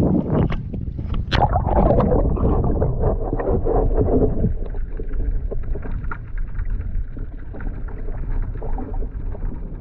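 Sea water sloshing and gurgling against a camera in a waterproof housing at and below the surface, muffled, with many small knocks; busier and louder for the first half, then calmer.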